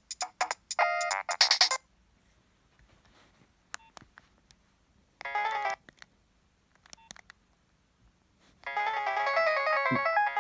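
Nokia 7250i mobile phone playing its preloaded ringtones through its small speaker as beeping electronic melodies. One tune stops about two seconds in, then comes a pause with a few faint clicks and a half-second snatch of tune, and a new ringtone starts near the end.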